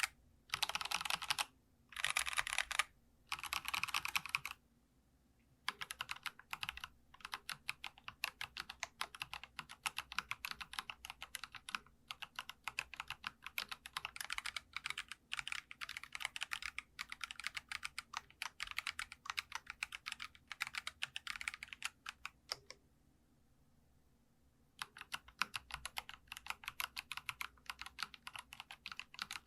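Typing on a Geekstar custom mechanical keyboard: a few quick bursts of rapid keystrokes, then steady fast typing with two short pauses, the second near the end before typing resumes.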